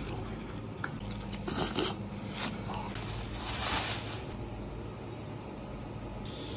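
Crunchy biting and chewing of crisp roasted pork hock skin. About three seconds in, a plastic bag crinkles and rustles as a raw pork hock is pulled out of it.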